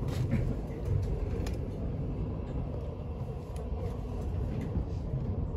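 Express train running at speed, heard from inside the passenger carriage: a steady low rumble with a few light clicks.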